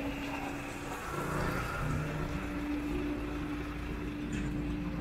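Street traffic: motor vehicles running, with a steady hum and low rumble throughout.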